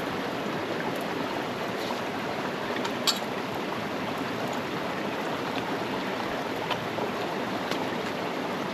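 A steady rushing noise like running water, with one sharp click about three seconds in.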